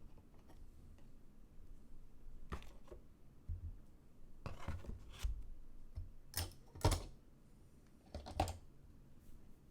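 Scattered clicks and short rustles from hands working at a desk, coming a few at a time with gaps between them; the loudest is about seven seconds in.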